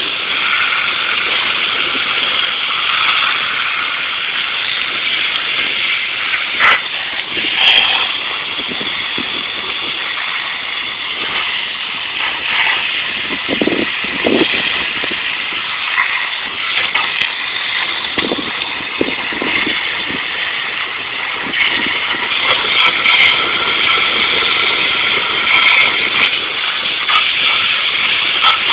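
Pressure washer running and spraying water, a steady hiss with a few brief knocks and surges as the spray strips loosened clear coat off an aluminum wheel.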